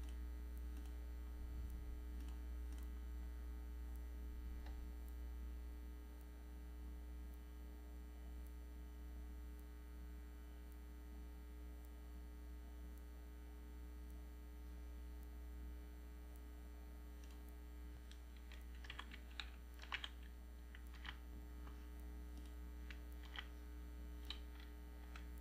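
Steady low electrical hum, with a scattering of short computer keyboard keystrokes and clicks in the last several seconds.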